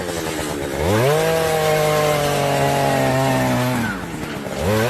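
Small petrol engine revving up about a second in, held at high revs for about three seconds, then dropping back; it revs up again near the end.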